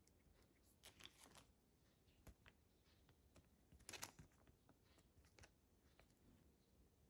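Faint crinkling and rustling of a clear plastic packet of wood duck feathers being handled, in two short bursts about one second in and about four seconds in, with light clicks between.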